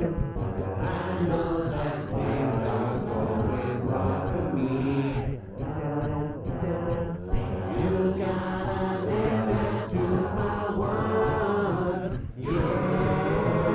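Multi-part a cappella voices performing a rock song, with steady low sung parts held under moving upper vocal lines.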